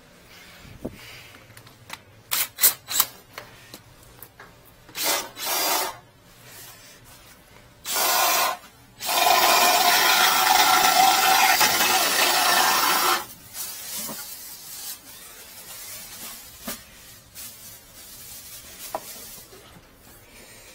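Drain cleaning cable being worked in a kitchen drain pipe: scattered scrapes and knocks, then about four seconds of loud steady scraping noise from about nine seconds in, and softer rubbing after it.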